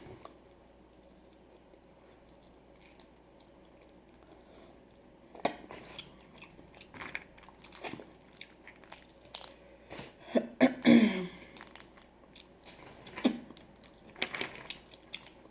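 Close-miked eating of boiled crawfish: shell crunching, lip smacking and chewing. It starts about five seconds in after a quiet stretch, with the loudest burst about eleven seconds in.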